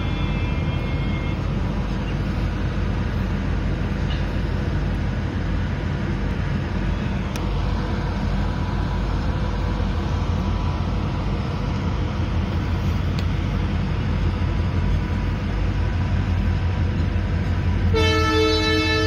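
Diesel freight locomotive approaching with its engine running as a steady low rumble, then sounding a loud, several-toned horn about eighteen seconds in.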